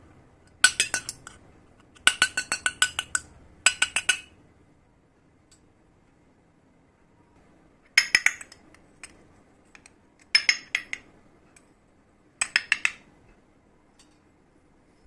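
Small toy kitchenware pieces clinking against each other. There are six short runs of quick, light, ringing clinks: three in the first four seconds, then three more after a pause.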